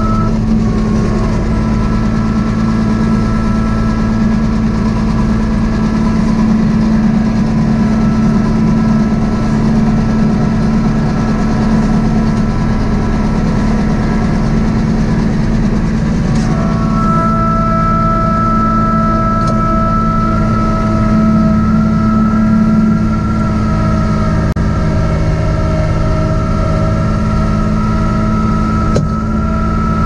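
Kubota B2650 tractor's three-cylinder diesel engine running steadily with its front snowblower rig. A higher steady whine comes in about halfway through and holds.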